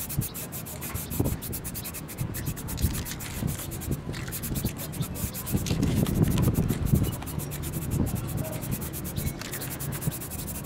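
Aerosol spray can hissing as it sprays grey paint onto the cast-iron vise parts, in passes, with a low rumble that swells around the middle.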